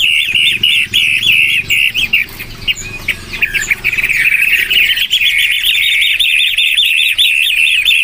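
A caged pentet (shrike) singing a fast run of repeated chattering notes, about five or six a second. The run falters into scattered notes around the middle, then picks up again.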